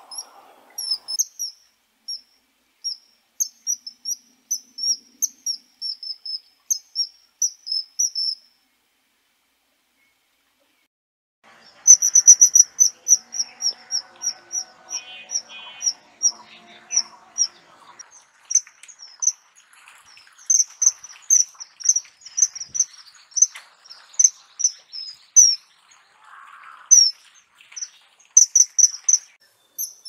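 Common kingfisher calling: a series of short, shrill high-pitched notes, several a second. The calls stop for about three seconds partway through, then resume louder.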